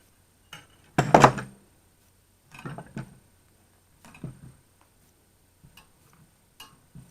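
Pliers clinking and scraping on a metal fuel pump and its bracket while working a spade-lug wire connector loose: a handful of separate clanks, the loudest about a second in.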